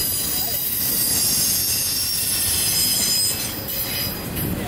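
Double-stack intermodal freight cars rolling past: a steady rumble of steel wheels on rail, with a thin high squeal from the wheels, easing off slightly near the end.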